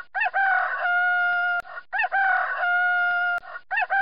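Rooster crowing cock-a-doodle-doo three times in quick succession, the same crow each time: a short rising-and-falling opening, then a long held note. The third crow begins near the end.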